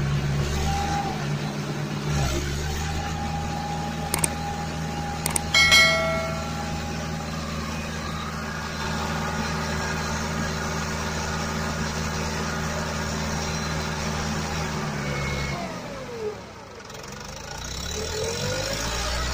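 Tractor engine running steadily. It drops away about sixteen seconds in and rises again near the end. A few sharp clicks and a short high tone come about five to six seconds in.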